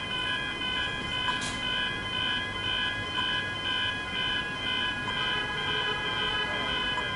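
Electronic level-crossing bells ringing in a fast, even, repeating pattern of high tones: the crossing is activated with the boom gates down for an approaching train. A single sharp click sounds about a second in.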